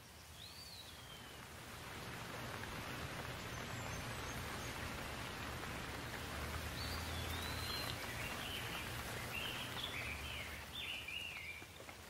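Steady rain falling, swelling about two seconds in, with a bird calling over it: one whistled note near the start and a run of short chirps in the second half.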